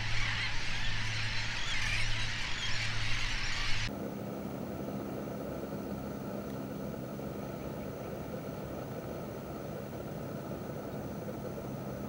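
A large flock of gulls calling densely over a steady low hum, which cuts off about four seconds in. After that only a quieter steady background hum with faint steady tones remains.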